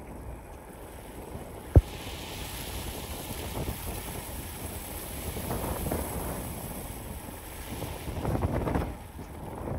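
Wind buffeting the microphone as a steady rushing noise that swells into louder gusts near the end, with one sharp click about two seconds in.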